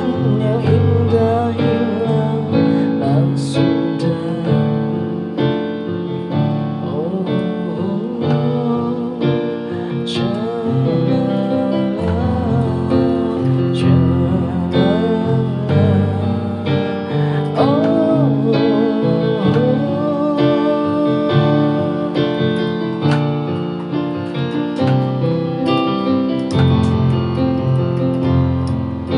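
Electronic keyboard with a piano-like sound playing an instrumental passage of a pop ballad: sustained chords over a steady bass line, with a melody on top.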